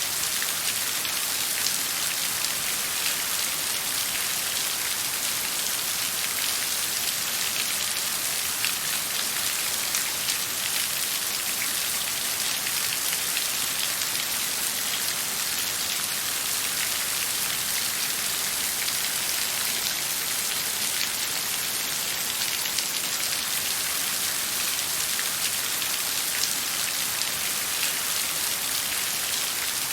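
Steady rain falling, a dense hiss of many small drops with no thunder.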